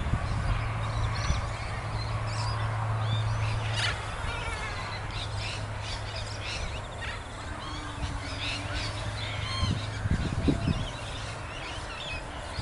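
Birds chirping and calling in short scattered notes over wind rumbling on the microphone, with a low steady hum that fades out about ten seconds in.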